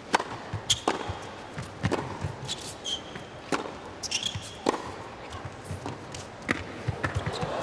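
Tennis rally on an indoor hard court: the ball cracks off racquets and bounces about once a second, with short sneaker squeaks on the court between shots.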